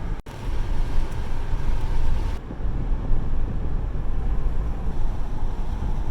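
Steady low road and engine rumble inside a moving car, with a very brief dropout about a quarter second in.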